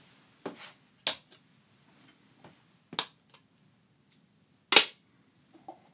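MagMod magnetic light modifiers snapping onto speedlight flash heads: a series of sharp clicks a second or two apart, the one near the end the loudest.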